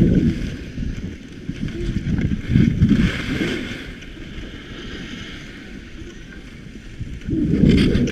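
Wind buffeting the microphone in rumbling gusts while skiing downhill, over the steady hiss of skis sliding on snow.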